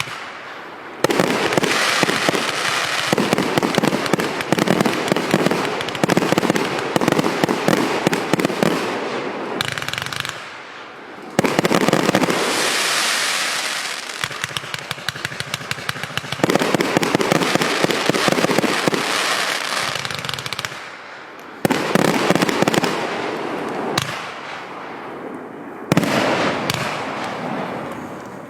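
A large firework compound cake firing: dense, rapid volleys of cracking shots that come in sections, each new section starting abruptly about every five seconds.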